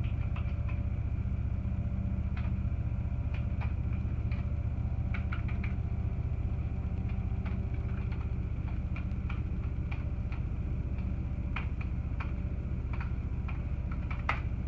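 Computer keyboard keys clicking, tapped in irregular short runs, over a steady low hum.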